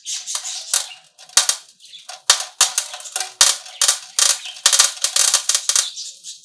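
Steel balls dropped one after another through the filler hole into a motorcycle's steel petrol tank, clattering against the inside in a fast, irregular run of sharp clicks with a short metallic ring after many of them. The balls go in to scour rust off the tank's inner walls.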